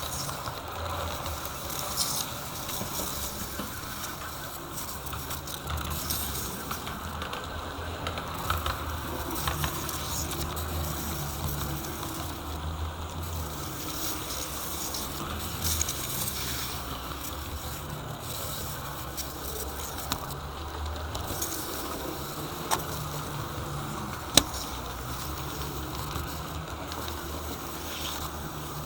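HO-scale model train running on its track: a steady whirr of wheels and motor, with scattered clicks and one sharp click about 24 seconds in.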